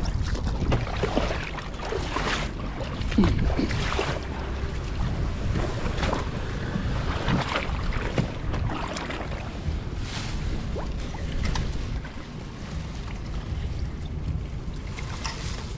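Wind rumbling on the microphone, with many short rustles and crackles of wet grass and water weeds as a hand pushes through them to a wire-mesh fish trap in shallow water, and some water noise.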